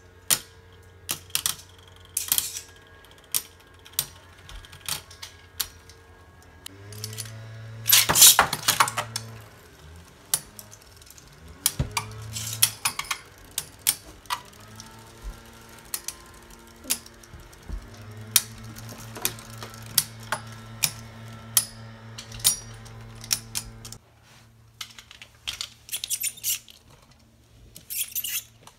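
Beyblade spinning tops clashing in a plastic stadium: many sharp clicks and clacks as they hit each other and the walls, over a low spinning hum whose pitch shifts and slides as they slow. The loudest run of clashes comes about eight seconds in.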